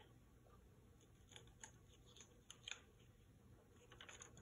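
Faint scattered clicks and snips of a kitchen utensil cutting and handling raw chicken, a few in the middle and a short cluster near the end, over quiet room tone.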